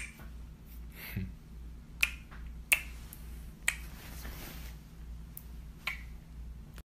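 Kisses on a cheek: a handful of short, sharp lip smacks spread out, over a faint low hum.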